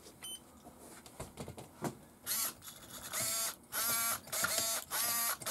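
Steering servo of a Tamiya GF-02 radio-control chassis whirring in a run of short bursts, its pitch bending up and down, as the steering is worked back and forth from the transmitter. The bursts start about two seconds in.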